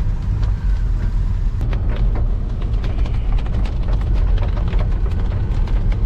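Car driving on a wet forest road, heard from inside the cabin: a steady low rumble of engine and tyres, with many irregular light ticks from about a second and a half in, from raindrops striking the windshield.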